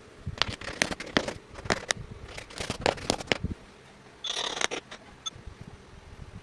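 A quick run of sharp clicks and knocks, as of small hard pieces being handled and tapped together, then a short hiss lasting about half a second and one faint ping.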